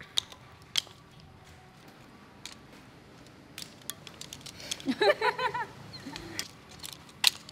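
Razor clam shells clicking against one another and the metal colander as the clam meat is picked out by hand: scattered light clicks. A short wavering vocal sound comes about five seconds in.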